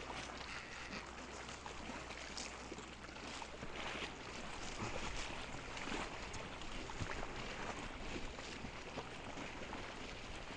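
A small boat's engine idling with a steady low hum, under a constant hiss of wind and lapping water.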